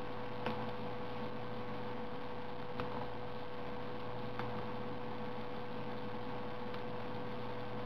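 Steady low hum and hiss with a constant tone through it, and four faint, brief ticks spread across it.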